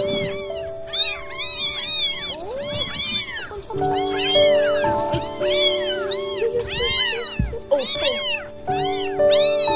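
Four young kittens meowing without pause, their high, thin calls overlapping several at a time, over background music of long held notes.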